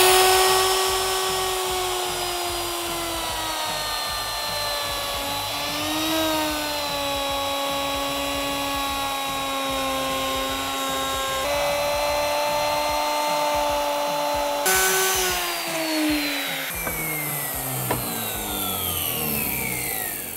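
Handheld plunge router running, its bit cutting a groove into a wooden tabletop along a clamped straightedge. The whine dips in pitch as the bit takes load, and near the end it slides down steadily in pitch as the motor spins down.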